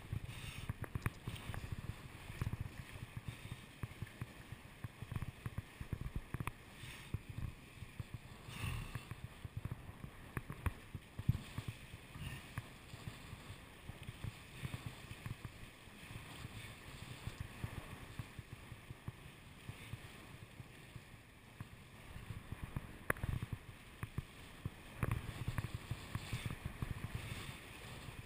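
Windsurf board skimming over choppy water: irregular slapping and splashing of the hull on the chop, over a low rumble of wind on the GoPro's microphone.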